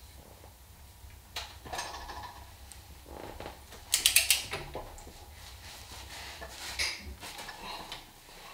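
Metal clicks and clinks of a socket wrench working the castle nut on a Dana 44 steering knuckle's ball joint stud, with a quick cluster of sharp clicks about four seconds in.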